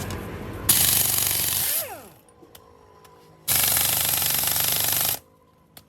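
Air-powered workshop tool, such as an impact wrench, run in two bursts of about one and one and a half seconds. Each burst starts and stops abruptly, and the first ends in a short falling whine as it spins down.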